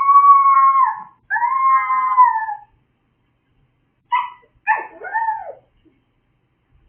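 A small dog howling: two long, drawn-out howls of about a second each, then after a pause a short yip and a howl that falls in pitch.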